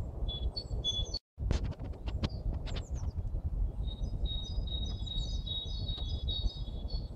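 Small songbirds singing and calling: a few high whistled notes, then a quick run of short sharp calls, then a longer twittering song of repeated high notes in the second half, over a steady low rumble of background noise. The sound cuts out completely for a moment just after a second in.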